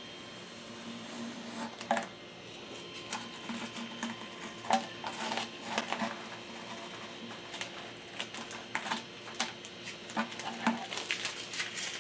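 Irregular light clicks, taps and rustles of a large thin-walled printed PLA vase being handled and turned over, with a faint steady hum underneath.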